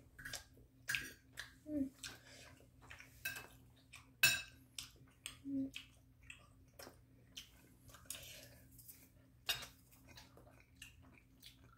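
Metal spoon scraping and clinking against a ceramic plate as food is scooped up and eaten: irregular short clicks, with one sharper clink about four seconds in. A few brief voice sounds come in between.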